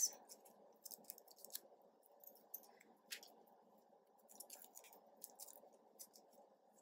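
Faint, scattered crinkles and small clicks of a small wrapper being picked and peeled off a keychain by hand, over faint steady room noise.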